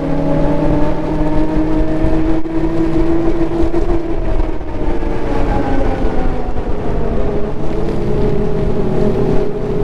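Ski-Doo Renegade Enduro's turbocharged 900 ACE three-cylinder four-stroke engine running at trail speed under way. Its pitch climbs and eases slightly a few times as the throttle changes, over a steady rushing noise.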